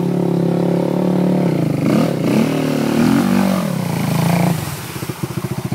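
Sport ATV engine under load through deep water, revving up and down a few times, with water spraying. About three-quarters of the way in it drops to a slow, evenly pulsing idle that fades away.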